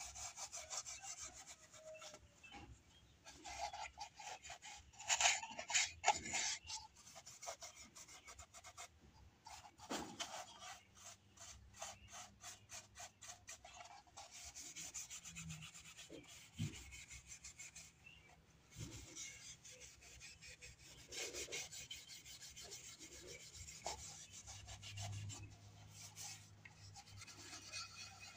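Steel wool rubbed lightly back and forth over a painted fish blank, buffing the paint: rapid scratchy strokes that come in spells with short pauses.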